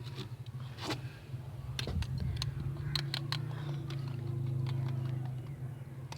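Scattered light taps and scrapes as chicken masala spice is added to meat in its marinade, over a low steady hum that swells about four to five seconds in and then fades.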